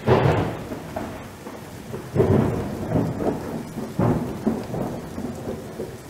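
Rain with rolling thunder: a loud rumble right at the start, then further rumbles about two, three and four seconds in over a steady hiss of rain.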